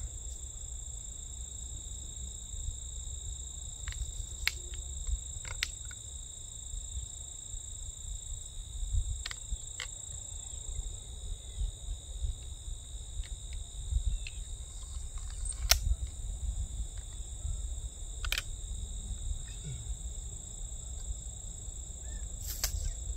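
A steady insect chorus holds two continuous high pitches over a low rumble. Scattered sharp clicks and knocks, about eight in all, come from a crossbow being handled and cocked.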